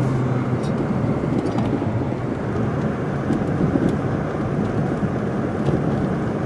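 Steady road and engine noise heard from inside a moving car's cabin, with a low engine hum under the hiss of the tyres.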